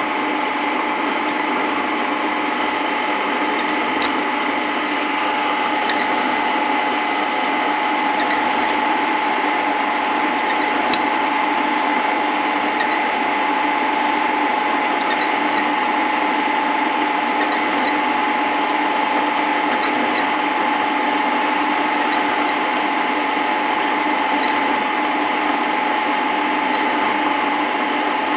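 Metal lathe running at low speed, turning a welded-up pulley to fit a taper: a steady machine hum with a constant whine, and scattered light ticks.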